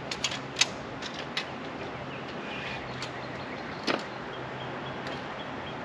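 Several sharp knocks and clanks, the loudest about half a second in and another near four seconds, over a steady low hum. These are typical of a heavy squared maple beam being shifted and set on a sawmill bed.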